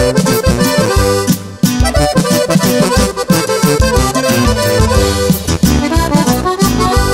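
Instrumental break of a Mexican norteño-style band song: a button accordion plays the lead melody over the band's accompaniment, with a short stop about a second and a half in before the music picks up again.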